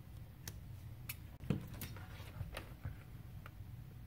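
Faint, scattered light clicks and taps, about eight over a few seconds, from hands working a digital multimeter's test probes and buttons.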